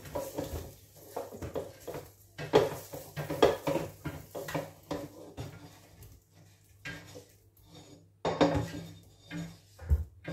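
A wooden spoon scraping and knocking inside a tipped non-stick air fryer basket as chunks of pork are pushed out into a slow cooker pot: irregular scrapes and clatters in short clusters, with a duller knock near the end.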